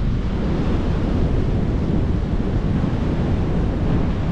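Steady rush of wind and ocean surf, with wind buffeting the microphone.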